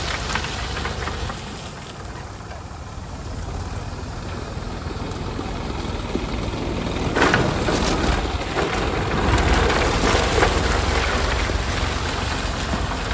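Heavy road-works machine engine running with a steady low rumble under a noisy hiss, growing louder with rough scraping from about seven seconds in.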